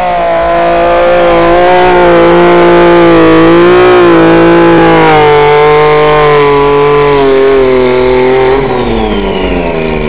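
Motorcycle engine held at high revs during a stationary burnout, the rear tyre spinning against the tarmac. The revs waver slightly, then fall away about eight and a half seconds in as the throttle is eased.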